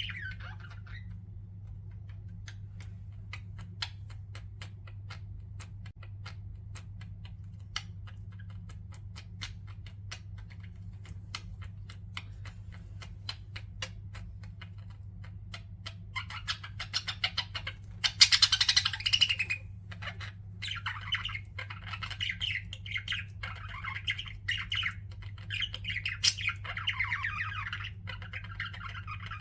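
Pet budgerigars: for the first half only scattered soft clicks and ticks, then from about halfway a dense, continuous chattering warble with a loud squawky burst. A steady low hum runs underneath.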